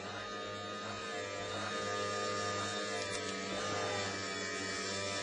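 Electric potter's wheel motor running with a steady hum while a ball of clay is centred on it.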